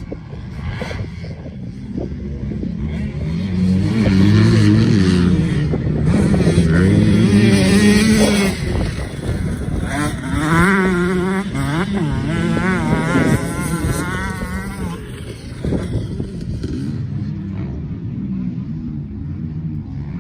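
Motocross bike engine revving hard and easing off again and again, the pitch climbing and dropping with each gear, loudest from about four to fifteen seconds in and then dying away.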